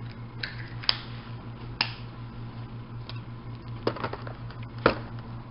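Small plastic toy pieces and packaging being handled on a tabletop: a few sharp clicks and taps, about one a second, with a cluster near four seconds in, over a steady low hum.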